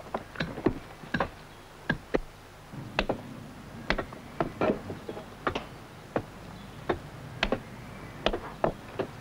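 Hammer strikes on iron wedges set in a row of wedge holes in a sandstone block, driving them in to split the block from the rock bank. Sharp, irregular blows, one or two a second.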